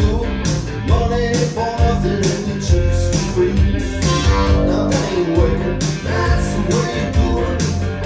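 A song with guitar and singing played loud through a pair of Revel M16 bookshelf loudspeakers driven by a Vincent SP-331 tube-input power amp, with no subwoofer. It has a steady beat.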